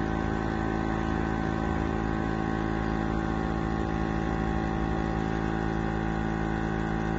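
Vacuum pump of a lab film coater's vacuum chuck running with a steady hum.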